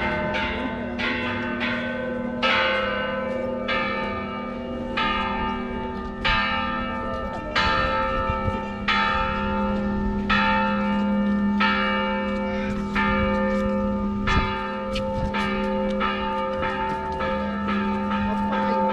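Church bells ringing: a run of quick strokes at first, then about one stroke every second and a quarter, each stroke's tones hanging on and overlapping the next.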